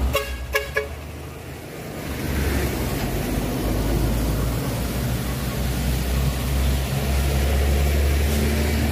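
Heavy diesel truck engine running, with the hiss of tyres and rain on a wet road, getting louder from about two seconds in. A few short beeps right at the start.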